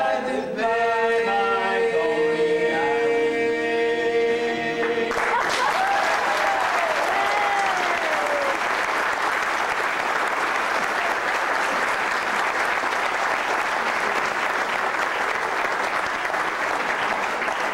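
Young men's a cappella group holding a final chord, which cuts off about five seconds in. Audience applause takes over, with a few gliding cheering calls just after it starts.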